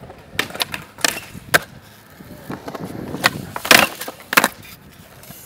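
Skateboard on concrete: several sharp clacks of the board popping and landing, with wheels rolling in between. Near the end the trucks grind along a concrete ledge.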